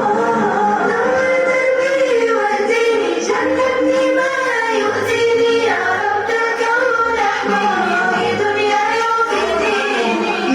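A song: singing voices, possibly a children's choir, over musical accompaniment.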